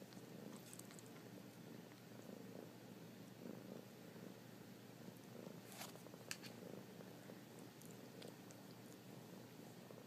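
Ginger kitten purring softly in a steady, pulsing rumble, with two faint clicks about six seconds in.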